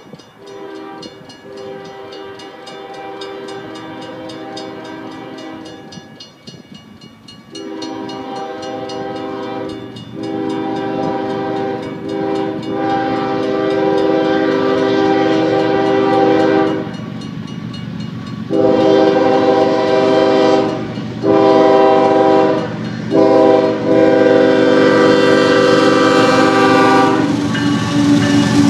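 Union Pacific GE ES44AC freight locomotive sounding its multi-chime air horn in a series of long and short blasts for a grade crossing, growing steadily louder as the train approaches. Near the end the locomotives pass close by with a rising rumble of engines and wheels.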